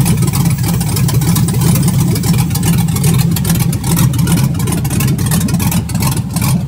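Freshly built Chevrolet 5.3-litre V8 with a 220/224 Comp cam, idling steadily on its first start-up, still untuned.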